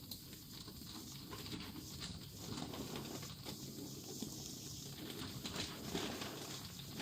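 Loose grain spawn being shaken and poured between jar and grow bag: many small scattered clicks and rustles, busiest in the middle, over a steady low hum.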